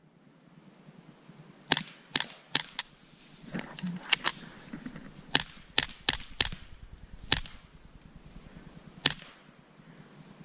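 Suppressed .22 rimfire Ruger 10/22 Charger pistol firing a rapid, uneven string of about a dozen sharp cracks, the first about two seconds in and the last about nine seconds in.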